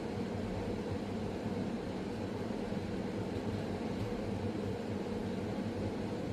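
Steady low mechanical hum with a soft hiss, unbroken room noise with no distinct events.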